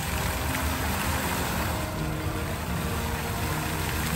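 Fountain water jets spraying and splashing back into the pool, a steady hiss of falling water.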